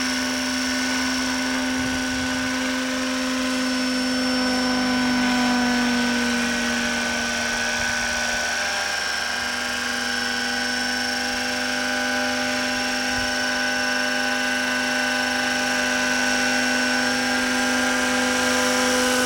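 Radio-controlled scale AS350 Squirrel model helicopter hovering and flying slowly. Its engine and rotors give a steady whine: a low hum with a high whistle above it, the pitch dipping briefly about halfway through.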